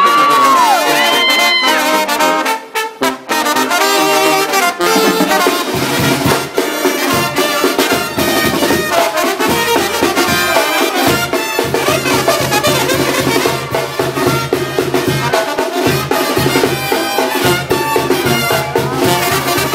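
Brass band playing an instrumental break, with trumpets and trombones carrying the tune. A low bass part comes in about six seconds in and keeps a steady beat under the horns.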